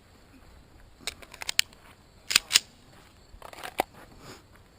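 Sharp metallic clicks and clacks of a pistol being loaded at the make-ready command: a quick run of clicks about a second in, two louder clacks a little after two seconds, and a few more near the end.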